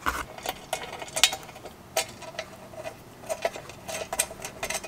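Small bolts and washers clicking and tapping against the metal panels of a turbo heat shield as they are fitted and threaded in by hand: light, irregular clicks.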